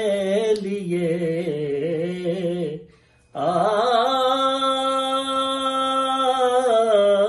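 A man singing a naat, an Urdu devotional poem in praise of the Prophet, unaccompanied, drawing out the words in ornamented, wavering melisma. After a brief breath pause about three seconds in, he holds one long, steady note.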